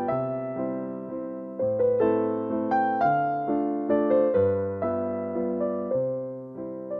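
Background piano music: a gentle melody of struck notes, each fading away before the next.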